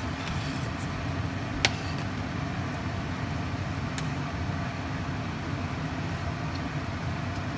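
Red-pork gravy boiling in a stainless saucepan, a steady low rumble, with one sharp clink of the metal stirring spoon against the pot about one and a half seconds in and a fainter click at about four seconds.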